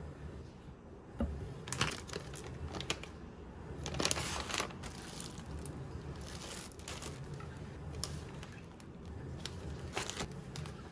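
Plastic grocery packaging crinkling and rustling as bagged greens, a bag of shredded cheese and a wrapped tray of mushrooms are handled, with a few sharp knocks as items are set down on a wooden table.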